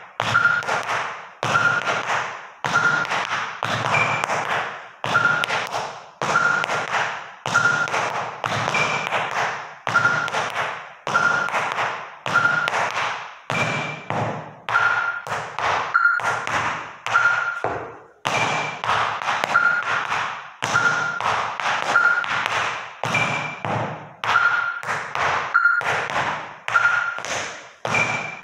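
Tap shoes' metal taps striking a wooden floor in quick clusters of shuffles and single steps. The taps come in short rhythmic phrases about every one to one and a half seconds, with brief pauses between.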